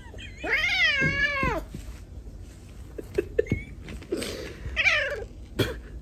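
Domestic cat meowing in complaint while being held aloft: one long, wavering meow, then a shorter one near the end, with a few light knocks between.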